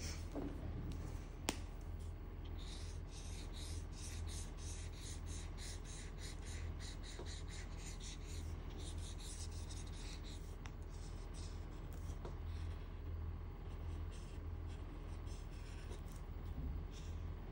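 Felt-tip marker being stroked back and forth over paper in a quick run of short strokes, about three a second, most dense for the first half, over a steady low hum.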